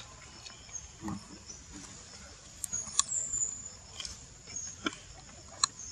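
Outdoor ambience: a steady high insect drone, with a few sharp clicks and soft rustles.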